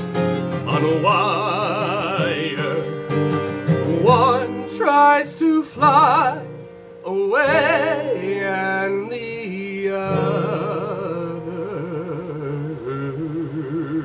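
Male voice singing long, wavering held notes with wide vibrato over a strummed acoustic guitar, with high upward swoops in the middle.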